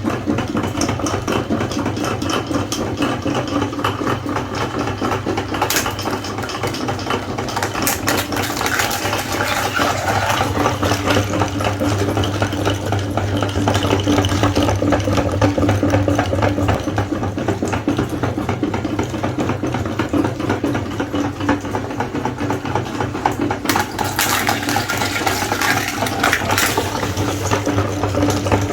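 Electric meat grinder running steadily, its motor humming under a continuous crackle of material being pushed through and ground.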